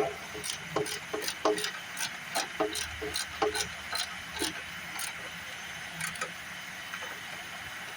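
Irregular metallic clicks and light clinks of hand tools working on bolts and brackets, a few a second, some with a short ring, thinning out after about five seconds.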